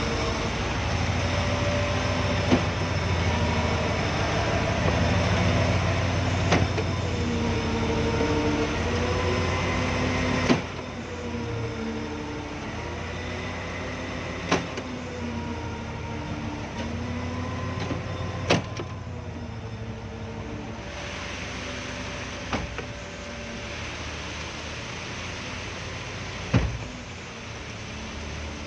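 Concrete pump running: a steady engine drone with a sharp clunk about every four seconds as the pump changes stroke. The drone drops in loudness about ten seconds in.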